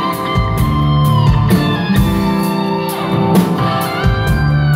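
Live rock band playing: an electric guitar holds long notes and bends them in pitch over drums and a steady low bass line.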